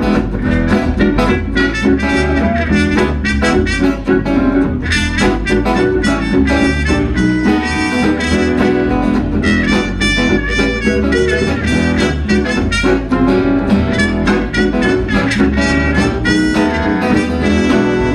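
Live jug band playing an instrumental break with a steady beat: a trumpet takes the lead over strummed acoustic guitar, electric guitar and bass guitar.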